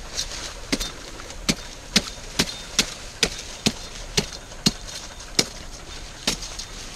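Machete blade chopping into earth and roots to dig open a small hole in the ground, about a dozen sharp strikes at roughly two a second.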